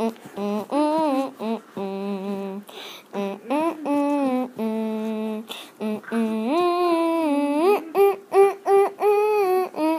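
A single voice singing a Christmas carol tune unaccompanied, in short notes with a few longer held ones.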